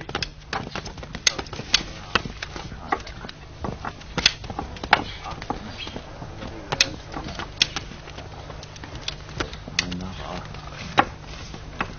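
Sharp clicks and knocks at an uneven pace over a low, steady hum, with a brief murmur of voice about ten seconds in.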